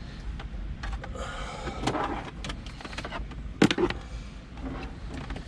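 Hands working small wire connectors for a reversing-camera loom: rustling and scattered small clicks, with one sharp loud click about three and a half seconds in, over a steady low rumble.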